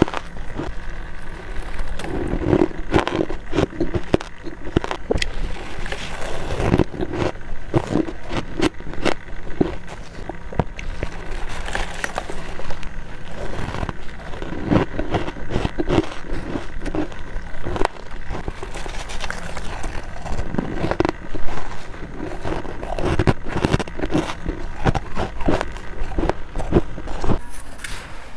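Freezer frost being bitten and chewed, close-miked: dense, repeated crunching and crackling all through.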